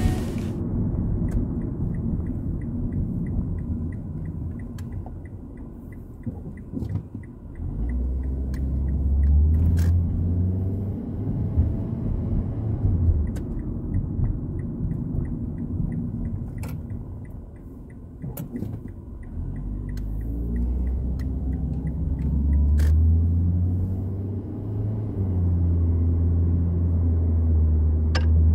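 Engine and road noise inside the cabin of a 2006 Mazda 3 2.0 L on the move, its automatic transmission freshly drained and refilled with ATF. The engine note rises and swells twice, at about eight seconds and again from about twenty seconds on. A light fast ticking runs for the first several seconds.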